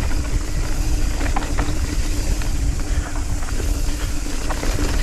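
Nukeproof Scout 275 hardtail mountain bike descending a dry, dusty dirt trail: steady wind rush on the microphone and tyre noise over loose ground, with a few short knocks and rattles from the bike.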